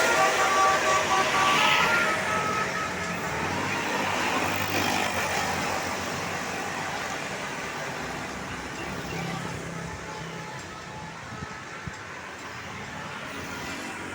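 A tourist bus's multi-note telolet horn sounding its last few notes, then the bus's engine and tyre noise fading steadily as it drives away.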